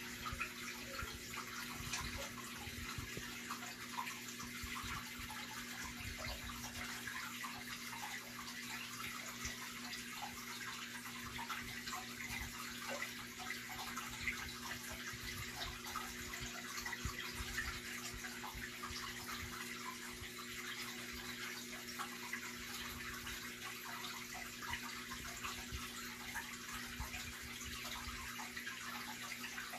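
Aquarium water circulation: a steady trickling and splashing of filter flow at the water surface, over a faint constant pump hum.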